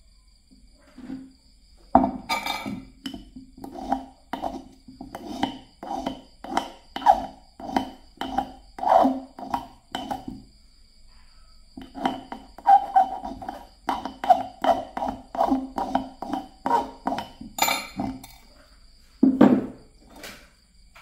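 Small metal file rasping back and forth on the end of a copper wire held against a wooden block, shaping the fishing hook. About two to three strokes a second, with a short pause in the middle.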